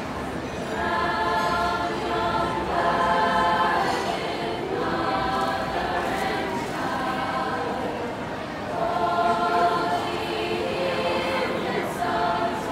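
Girls' choir singing a Christmas carol, in phrases of held notes with short breaks between them.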